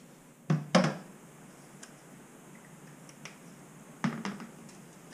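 Clacks and ticks of hand tools being handled against tile: two loud knocks about half a second in, a few light ticks, then another pair of knocks about four seconds in, as a spirit level is set aside and a tape measure taken up.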